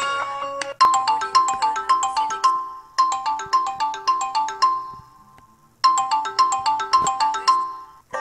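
Samsung Galaxy S4 Mini stock ringtone playing: a quick melodic run of bright struck notes, looped three times with a short pause before the third. The tail of a held chime from the previous tone sounds before it, for about the first second.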